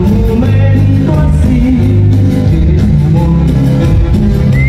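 Loud dance music with a singing voice over a steady, repeating bass line.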